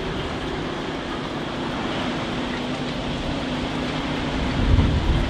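Strong steady storm wind buffeting the microphone, from hurricane winds of about 30 mph, with a faint steady hum underneath. A harder gust hits near the end.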